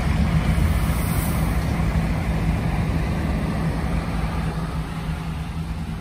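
Isuzu Giga heavy truck's diesel engine idling steadily, heard from inside the cab while the truck waits in line at a fuel pump.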